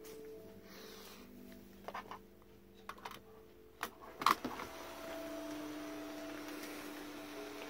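A few sharp clicks and knocks, the loudest a little past halfway. Then the built-in electric blower fan of an inflatable toy soldier starts and runs with a steady hum, filling the figure with air.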